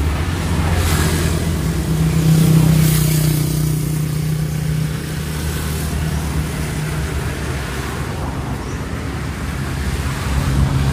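A nearby motor vehicle's engine running with a steady low drone, swelling a little around two to three seconds in, over roadside traffic noise.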